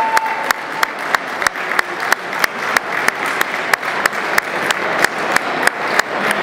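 Crowd applauding, with one close, sharp clap standing out and repeating steadily about three times a second.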